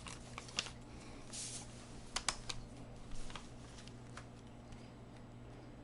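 Small scattered clicks and taps of a screwdriver and a small screw on a laptop's plastic case and battery as the screw is set and driven, mostly in the first four seconds, then quieter.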